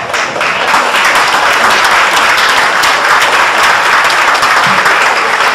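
Audience applauding: many hands clapping together in a dense, steady patter that starts up suddenly and keeps going.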